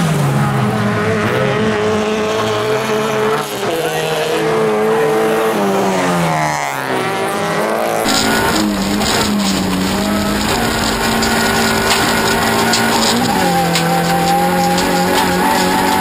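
Rallycross car engine racing on a dirt track, revving up and down through gear changes. About halfway through, the sound switches to inside the cabin of a Toyota Corolla rallycross car, its engine running hard with a drop in pitch at a gear change about three seconds from the end.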